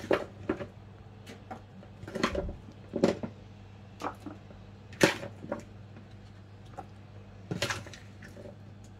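Chopped vegetable pieces being set down by hand on a foil-lined baking tray: a series of short taps and foil crinkles at irregular intervals, the loudest about five seconds in, over a steady low hum.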